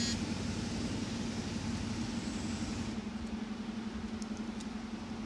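A steady low hum in the room, with a couple of faint light clicks about four seconds in as plastic Lego Technic parts are turned by hand.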